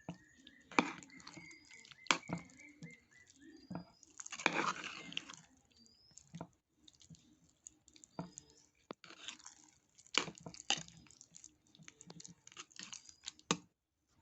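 Curd rice being stirred and mixed in a vessel: soft wet squelching with irregular knocks of the utensil against the vessel, and a longer, louder stretch of stirring about four seconds in.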